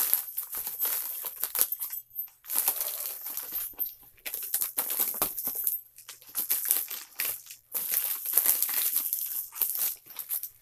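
Plastic mailing envelope crinkling and rustling in irregular bursts as it is cut open with scissors and pulled apart.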